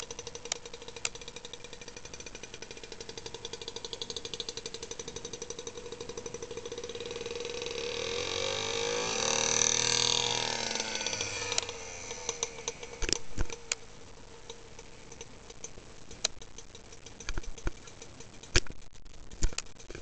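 British Seagull two-stroke outboard motors running at a steady pitch. About halfway through the engine sound swells louder, rising and then falling in pitch, and fades. Scattered sharp knocks follow.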